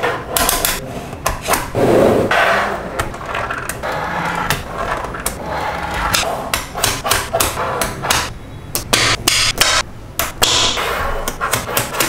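Magnetic balls clicking and clacking as they snap together: many sharp clicks at uneven spacing, some in quick runs.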